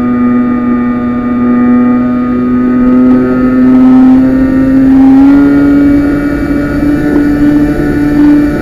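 Motor and propeller of a Talon RC plane in flight, heard through its onboard camera: a steady buzzing drone that creeps up in pitch and steps slightly higher about five seconds in.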